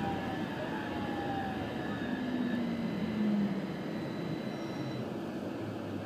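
Copenhagen Metro driverless train moving off from a station at low speed, heard from inside the front car: a steady rumble of wheels on rail with the electric drive's faint whine tones sliding in pitch.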